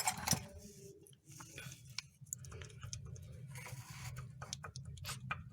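Scattered light metallic clicks and clinks as worn rear brake caliper brackets and their parts are handled, over a faint steady low hum.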